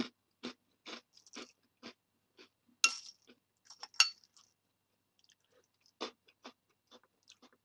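Mouth chewing crunchy Nesquik chocolate cereal puffs, a crunch about every half second. A metal spoon clinks against the bowl twice, sharply and with a short ring, about three and four seconds in.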